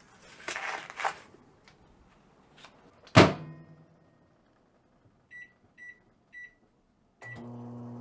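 Microwave oven being loaded and started: a short clatter, the door shut with a loud bang about three seconds in, three keypad beeps as the cooking time is entered, a fourth beep for Start, and then the oven's steady low running hum starts near the end.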